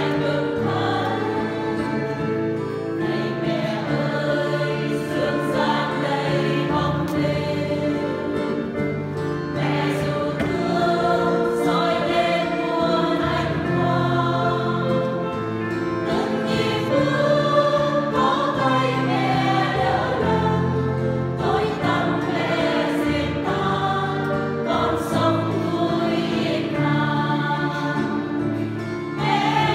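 Women's choir singing a Vietnamese Marian hymn in parts, in long flowing phrases.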